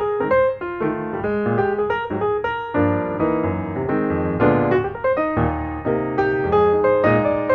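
Piano music: a steady flow of melody notes over chords, several notes a second.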